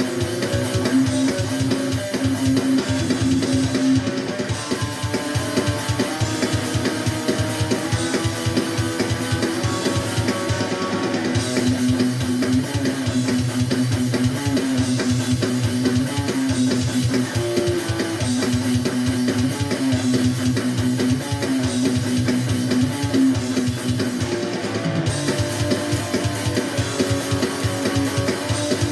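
A band jam in a raw, unmixed take: strummed guitar over a drum kit, playing a steady rhythm.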